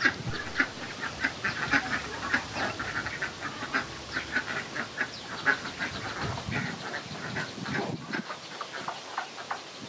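A flock of domestic ducks quacking, with many short calls overlapping one another.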